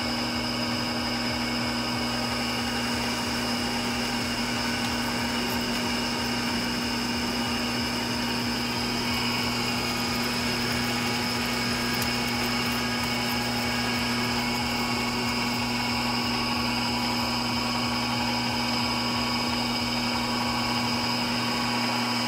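Emco Maximat V10 metal lathe running steadily at about 315 RPM, a constant hum with a high whine over it, as the cutting tool turns down a 2-inch metal bar.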